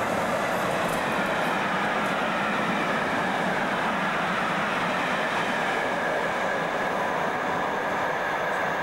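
Train running through the station at speed: a steady rush of wheel and rail noise.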